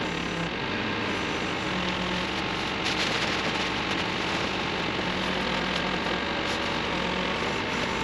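Terex TX760 backhoe loader's diesel engine running steadily while its backhoe arm works, with a continuous low hum.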